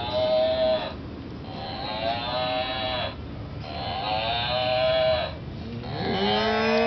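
A black-and-white toy cow playing a recorded moo three times in a row, each about two seconds long with short gaps. A fourth, deeper moo that rises and then falls in pitch starts near the end.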